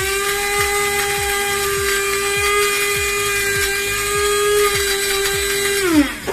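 Small electric grinder's motor running at a steady high whine while it grinds dry garlic crackers to powder, then spinning down and stopping near the end.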